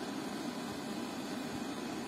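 MZ M423SP soundbar in FM mode playing a steady radio static hiss, with no station coming through.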